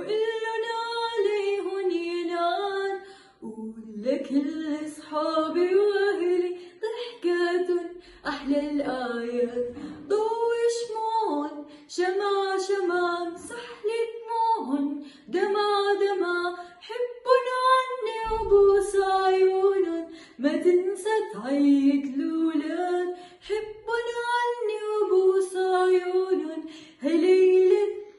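A girl singing solo, in sung phrases of held notes with short breaths between them, with no instrument heard beneath her voice.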